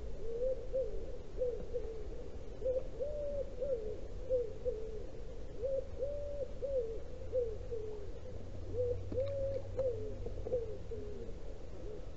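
Pigeon cooing in repeated phrases, each a short coo, a longer held coo and a few short ones, with a low steady rumble underneath.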